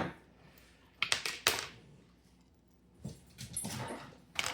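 Sharp metal clicks and knocks from an American Lock 1100 padlock and its parts being handled while it is taken apart, with a quick cluster of clicks about a second in and softer handling sounds later.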